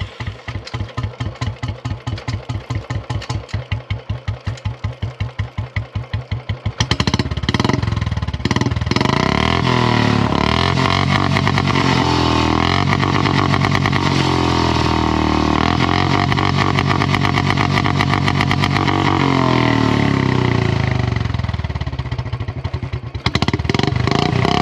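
Royal Enfield Bullet 350's single-cylinder engine through a long-bottle 'Bada Punjab' silencer. It idles with an even thumping beat for about seven seconds, then is revved hard and held high, the pitch rising and falling. Near the end the revs drop briefly and pick up again.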